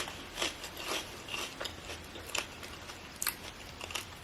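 A person eating close to the microphone: irregular crisp crunches, bites and mouth clicks while chewing crunchy food.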